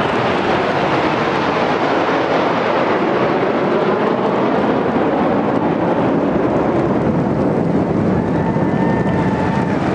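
Jet aircraft flying low overhead: a loud, steady rush of jet engine noise, with a faint whine rising above it near the end.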